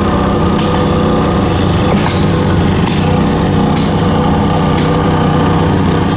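Loud machinery near the tracks running steadily with an engine drone, cut by a short, sharp hissing stroke that repeats roughly once a second.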